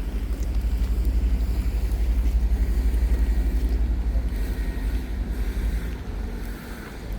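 Road traffic: a vehicle passing on the street, its low rumble swelling over the first few seconds and fading after about five seconds.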